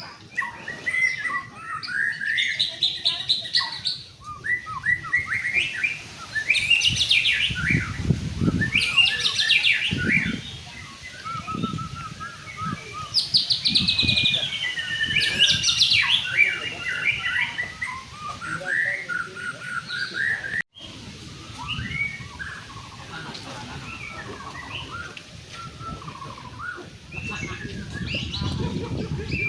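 White-rumped shama (murai batu) singing a long, varied song of whistles, fast trills and quick chattering phrases, with low rumbling noise at times.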